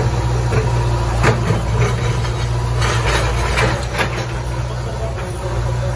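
JCB backhoe loader's diesel engine running steadily while its rear bucket breaks up a concrete footpath, with scraping and knocks of broken slabs about a second in and again around the middle.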